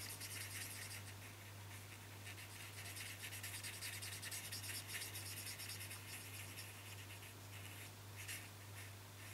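Alcohol marker nib scratching and rubbing on cardstock in quick, short, repeated colouring strokes, faint, over a steady low hum.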